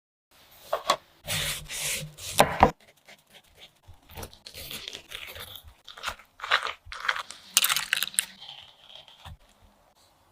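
A knife cutting and scraping through melon rind and flesh in irregular strokes, with crunching and rubbing. A few louder cuts come in the first three seconds, then softer scraping.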